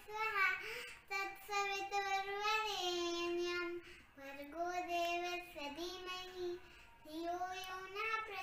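A young girl singing a song alone, without accompaniment, in long held notes with short breaks between phrases.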